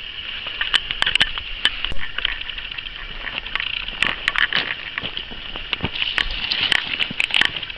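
Footsteps crunching on loose rounded river gravel and cobbles: a string of irregular sharp clicks of stones knocking together, over a steady hiss.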